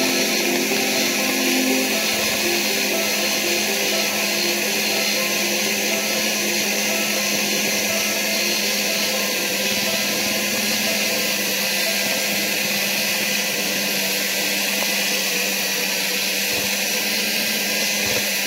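Electric mixer running steadily, its beaters whipping a thick white mixture in a bowl.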